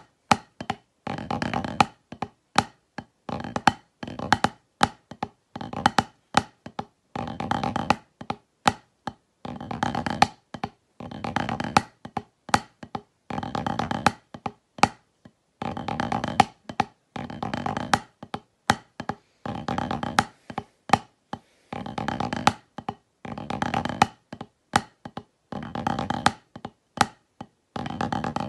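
Wooden drumsticks on a rubber snare practice pad: fast rolls and rudimental patterns played in dense bursts about a second long, roughly every two seconds, with single taps and short gaps between them.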